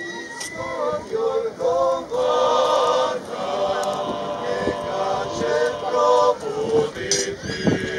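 Klapa, a Dalmatian male a cappella vocal group, singing in close harmony, with several held chords.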